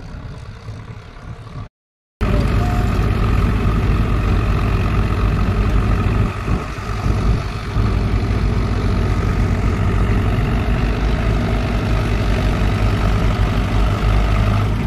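A tractor hauling a loaded trolley runs fainter for under two seconds and cuts off. Then comes a loud, steady drone of heavy diesel engines close by: a JCB backhoe loader working beside a tractor and trolley.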